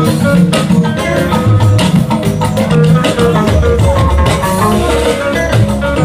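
Live church band playing an instrumental passage: guitar picking short repeated notes over a moving bass line, with drums keeping a steady beat.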